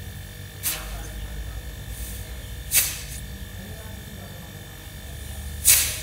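Three short bursts of hissing as the end of the refrigerator compressor's discharge hose is opened and closed, releasing pressure built up by the running compressor while flushing the system. The compressor's low steady hum runs underneath, and the last burst is the loudest.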